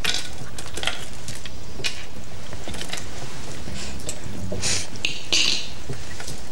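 Go stones clicking on the wooden board and against each other as hands move and rearrange them to count a finished game: a handful of separate clicks, the loudest pair near the end.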